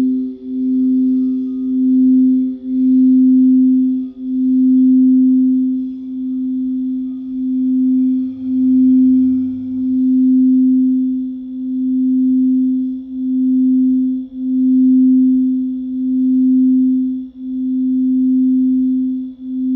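Singing bowl sustaining one steady low note with faint higher overtones, its loudness wavering in slow swells every second or two.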